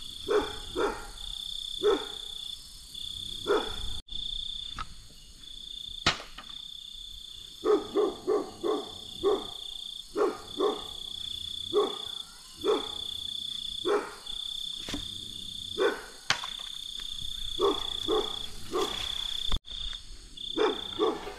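Night chorus: insects trill high-pitched in long broken stretches, while frogs croak in short calls, often in quick runs of two to four.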